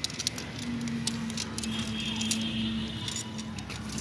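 Tent poles being handled and fitted, giving a quick series of light clicks and taps, over a steady low background hum.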